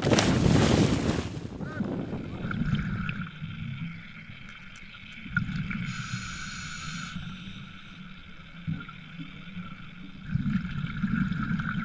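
A scuba diver's backward-roll entry into the sea, a loud splash, then underwater sound: low rumbling surges of exhaled regulator bubbles twice, over a steady high hum.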